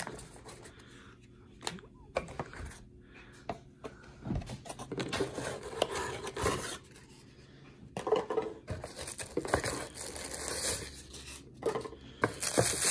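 Cardboard lens box and paper inserts being handled by hand: rustling, scraping and small knocks, busier and louder in the second half.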